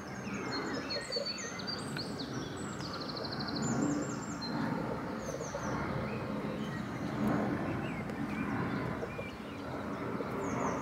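Outdoor ambience with small birds chirping and twittering, including a quick trill about three seconds in, over a steady background hiss.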